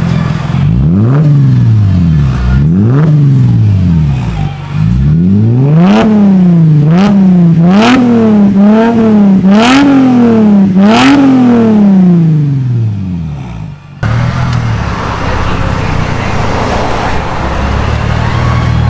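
Mercedes-Benz SLK55 AMG Black Series V8 idling and being revved: a few single throttle blips, then about six quick revs in a row before it settles back. Near the end it cuts abruptly to a steadier, hissier engine sound.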